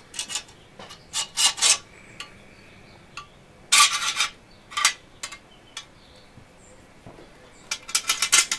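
Steel crossguard and pommel being slid onto a longsword blade's tang for a dry fit: a series of short metal-on-metal scrapes and clinks, the longest about four seconds in and a quick cluster near the end.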